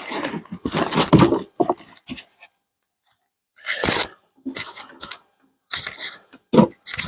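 Hands rummaging through compost in a potato container: rustling and crunching of soil in irregular bursts, with a silent pause in the middle.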